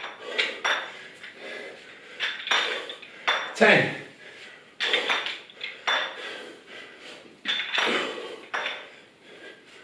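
Adjustable plate dumbbells clinking and clanking over and over as they are lifted from the floor to overhead and lowered again, the loose metal plates rattling on the handles with each rep.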